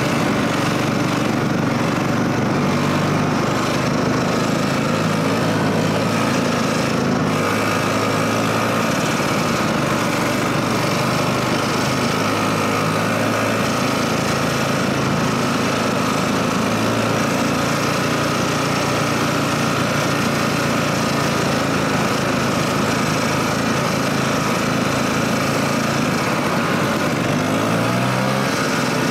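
Snowmobile engine running steadily while under way, its pitch shifting slightly now and then and rising near the end.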